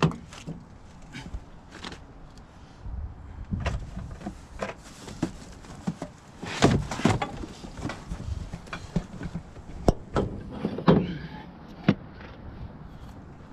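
Irregular knocks, thumps and rustling handling noises of someone moving about at a pickup truck, loudest about halfway through and again near the end, over a low rumble of wind on the microphone.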